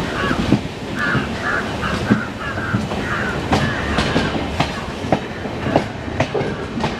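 Passenger train running on its rails, heard from aboard a coach: a steady rumble of wheels and carriage with irregular sharp clacks as the wheels pass over rail joints.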